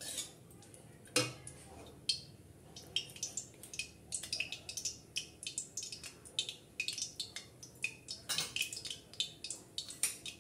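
Spatula knocking against a metal kadai about a second in and again near the end, while the oil heating in the pan gives off a quickening run of small, sharp crackles and ticks.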